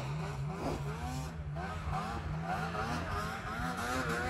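Snowmobile engine revving up and down in deep powder snow, its pitch rising and falling over and over.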